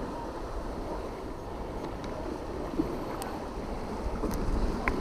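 Steady wind buffeting the microphone over the wash of sea water against the pier wall, with a few faint ticks.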